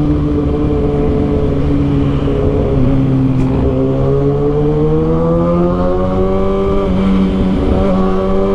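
Kawasaki ZX-6R 636's inline-four engine running through its Arrow exhaust. Its note sinks slightly over the first three seconds, then climbs steadily as the revs rise.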